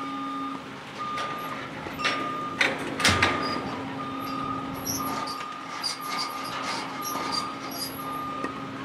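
A vehicle's reversing alarm beeping about once a second, one steady pitch, over a constant low hum. A few sharp knocks, the loudest sounds, come about two to three seconds in.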